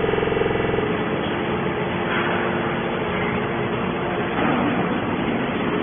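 Can baling press machinery running with a steady mechanical noise; a buzzing hum stands out in the first second, then gives way to a rougher, denser machine noise with a faint steady tone.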